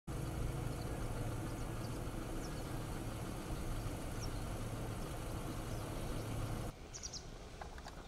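A steady low engine-like hum and rumble, with a few faint, short, high bird chirps; the rumble cuts off abruptly about seven seconds in, leaving quieter outdoor noise and a brief cluster of chirps.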